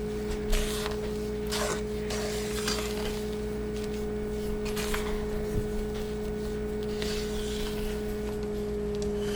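Spatula folding angel food cake batter of whipped egg whites and flour in a bowl: soft, irregular scraping strokes. A steady hum runs underneath.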